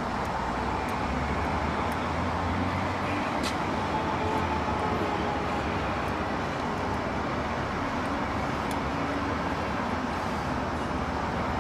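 Steady background rumble and hiss with a low hum, broken by a few faint clicks.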